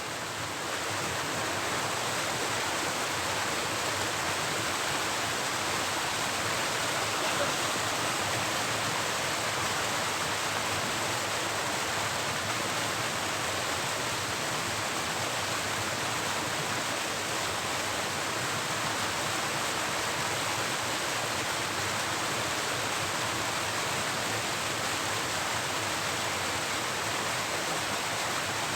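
Steady rushing of flowing river water, an even hiss without a break.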